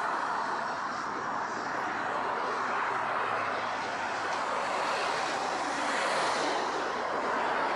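Steady rush of road traffic, an even noise with no single vehicle standing out.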